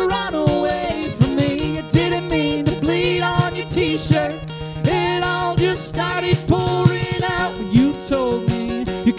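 A live song: singing over plucked guitar with held low notes underneath.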